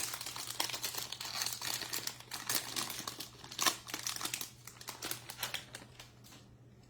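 Foil wrapper of a pack of baseball cards crinkling and tearing as it is opened and handled, stopping about six seconds in.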